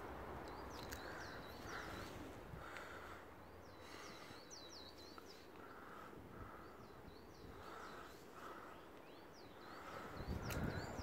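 Wild birds chirping and calling: quick high chirps again and again, over a run of shorter, lower calls repeating every second or so. A low thump comes near the end.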